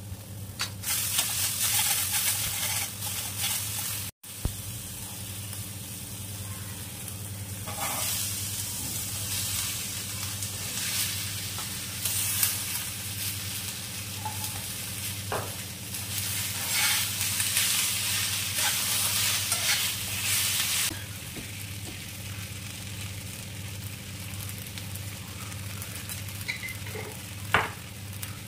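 Cauliflower, potato and capsicum sizzling in hot oil and onion-tomato masala in a frying pan as they are stirred, the sizzle swelling and fading with the stirring and easing off in the last few seconds, over a steady low hum.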